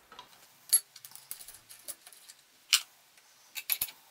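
Steel clinks and taps as a strap clamp, its nut and an open-end wrench are handled and set on a milling machine table: sharp clicks with quieter ticks between, loudest once about three-quarters of a second in, once near the three-second mark, and in a quick cluster near the end.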